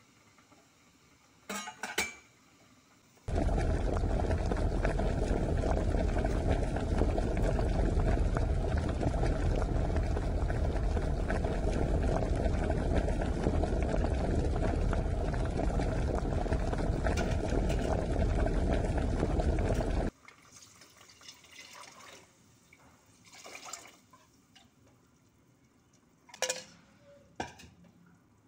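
Liquid pouring steadily into a large aluminium cooking pot for about seventeen seconds, starting and stopping abruptly. A few light knocks come before and after it.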